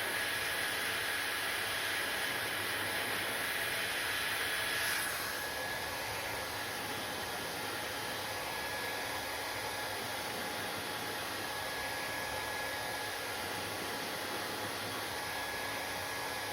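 Hair dryer blowing steadily, a rushing air noise with a faint whine over it; about five seconds in the sound shifts and drops a little in level, then runs on evenly.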